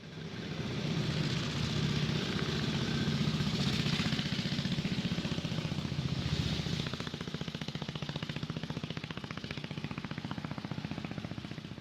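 A fast mechanical rattle of rapid, even pulses that fades in and then fades out.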